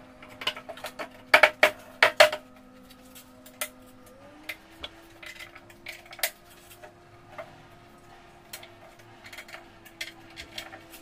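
Particleboard furniture panels knocking together as the top panel of an IKEA Bestå frame is set down onto the side panels' dowels: a cluster of sharp knocks within the first few seconds, then scattered lighter clicks and taps as the fittings are worked by hand.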